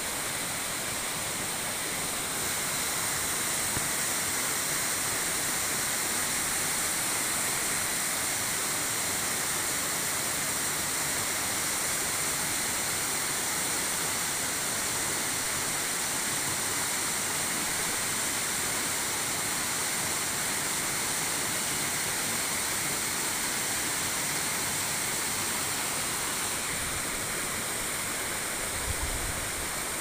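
Waterfall plunging into a rocky pool: a steady, even rush of falling water. A brief low rumble comes on the microphone near the end.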